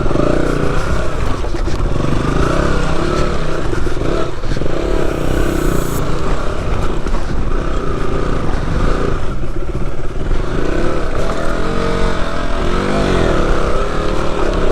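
Off-road motorcycle engine running as it is ridden over rocky ground, its revs rising and falling.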